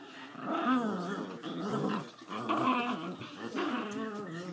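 Collie puppy and chihuahua play-growling while they pull against each other on a rope toy in a tug of war. The growls come in wavering, uneven runs with short breaks.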